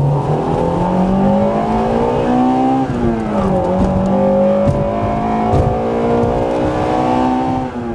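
Car engine accelerating hard, its pitch climbing for about three seconds, then a brief drop and recovery like a gear change, then pulling on at a steady high pitch and starting to fade near the end.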